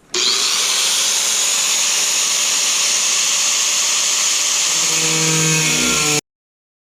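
Angle grinder with a thin cut-off wheel cutting sheet metal, a loud steady hiss-whine that cuts off suddenly about six seconds in.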